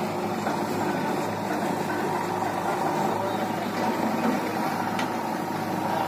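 Mahindra Arjun 555 tractor's four-cylinder diesel engine idling steadily, mixed with the diesel engine of a JCB 3DX backhoe loader working alongside it.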